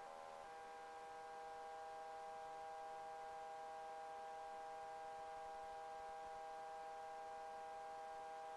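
Faint, steady hum made of several even tones, from a helicopter running with the crew aboard, heard through the intercom headset audio.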